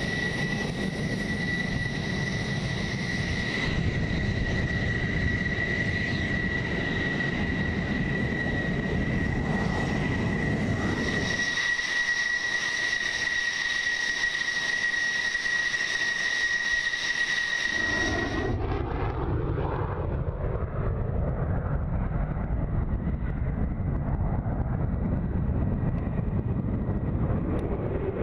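F-16 fighter jet engines running: a steady high-pitched whine over a rumble as the jets taxi, changing character at the cuts. About two-thirds of the way through, the whine stops and a deep, broad jet roar takes over as an F-16 takes off.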